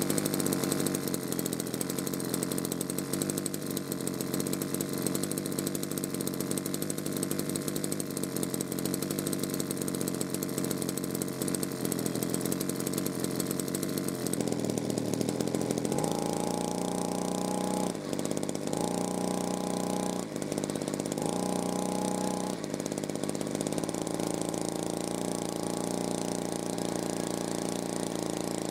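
Small two-stroke engine of an old brush cutter catching right at the start and running steadily; past the middle its note changes three times in quick succession, then it runs on evenly.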